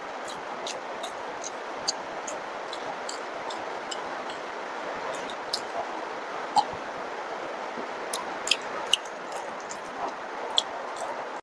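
Close-miked mouth sounds of a man sipping and swallowing a drink from a glass: a string of irregular sharp, wet clicks and smacks. Under them runs a steady hiss of heavy rain.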